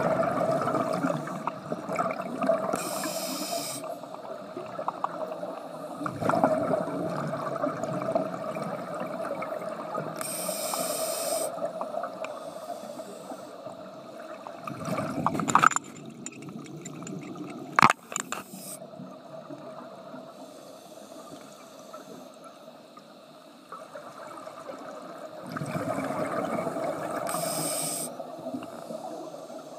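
Scuba regulator breathing heard underwater, muffled: the hiss of an inhalation and the bubbling rumble of exhaled air, a few slow breaths. Two sharp knocks near the middle, like gear bumping the camera housing.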